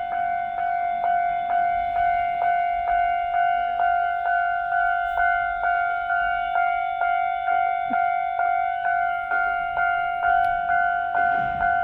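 Japanese level-crossing warning bell ringing in a steady ding-ding rhythm, about two strikes a second, sounding as a train approaches. Near the end, the rumble of the oncoming train begins to rise under the bell.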